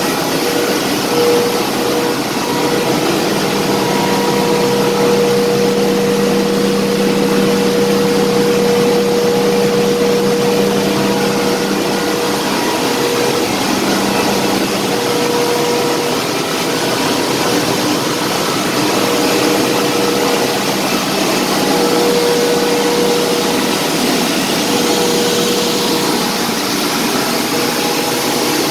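Steady, loud machinery drone of a ship's boiler room, with a steady hum running through it and a lower hum that drops out about halfway.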